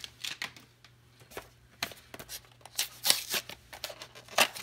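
Hands handling small cardboard blind boxes: scattered soft taps and rustles, a denser patch of handling noise about three seconds in, and a crisp click near the end as a box is pulled from the case.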